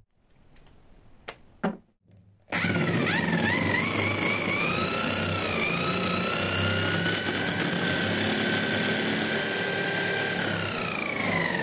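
A few light clicks, then an electric drill spins a motorcycle magneto flywheel on its stator. The motor's whine rises as it speeds up, runs steady, and starts to drop near the end as the drill slows.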